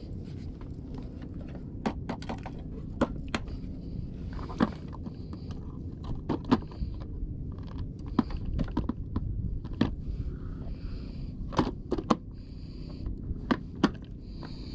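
Scattered sharp clicks and knocks from fishing tackle and a metal jig being handled aboard a wooden outrigger boat, over a steady low rumble.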